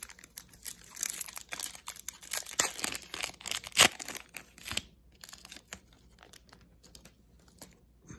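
Foil trading-card pack wrapper crinkling as it is handled and torn open, with one sharp rip a little under four seconds in. The crinkling stops about five seconds in.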